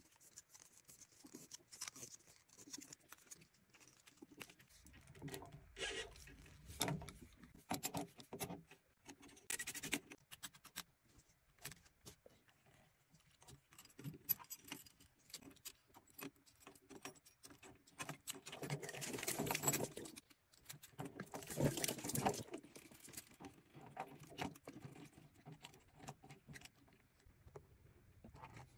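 Faint, irregular metallic clinks and scrapes of an adjustable spanner working a brass temperature and pressure relief valve as it is tightened into an unvented hot water cylinder, with two louder spells about two-thirds of the way through. Light handling of the taped valve thread comes first.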